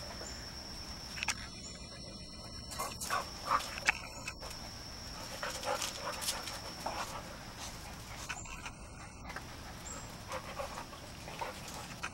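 Chesapeake Bay Retriever puppies and their mother at play, with short scattered puppy yips and whimpers.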